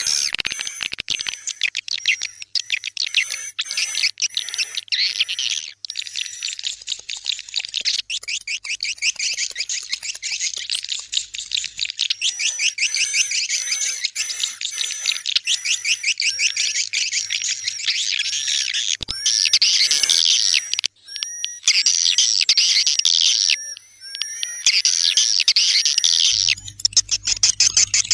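Swiftlet lure call, a 'tarik senja' (dusk-pull) track made to draw swiftlets into a swiftlet house at dusk. It is a dense, rapid twittering of chirp trains with thin steady high tones through it. In the last third, denser chirping passages cut in and out abruptly several times.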